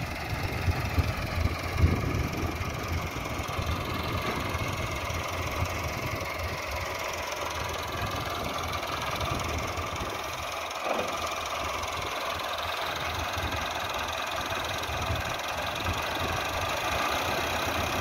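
Massey Ferguson 385 tractor's diesel engine running steadily while it drags a suhaga plank leveller over ploughed soil.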